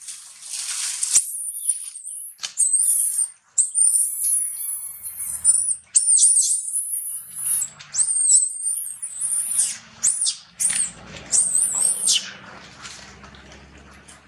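Young long-tailed macaque screaming: a long run of shrill, high-pitched cries that swoop up and down in pitch, repeated one after another and fading out near the end. They are the distress cries of an infant monkey calling for its mother.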